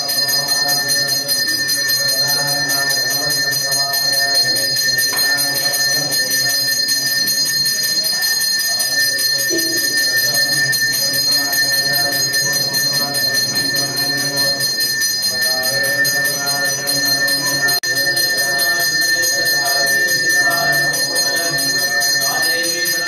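A temple bell rings continuously at one steady high pitch, struck rapidly and without pause, as is done during the ritual bathing of a deity. Voices sound underneath.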